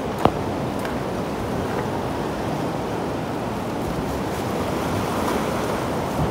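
Surf washing against a rocky shore: a steady wash of waves. One sharp knock comes just after the start.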